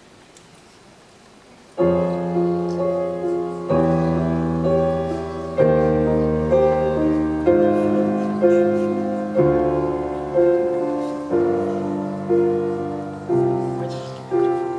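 Grand piano playing a slow introduction, starting about two seconds in: sustained chords struck about once a second, each ringing and fading before the next.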